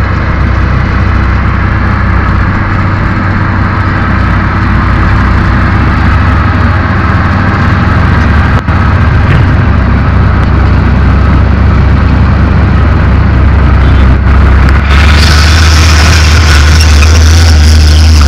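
SD16E crawler bulldozer's diesel engine running under load as the blade pushes soil, a steady low drone that slowly grows louder. About fifteen seconds in, a loud hissing noise comes in as a dump truck drives through.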